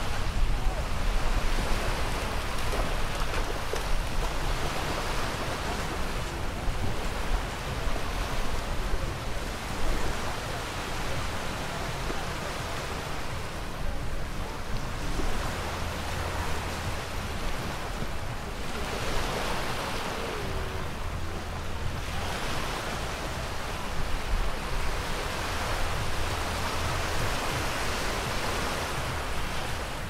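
Small surf washing onto a sandy shore: a steady hiss of breaking water that swells and eases every few seconds, with a low rumble underneath.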